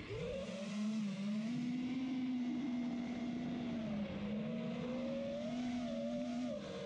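A motor running at a steady, fairly high pitch with a buzzing overtone, dipping slightly now and then.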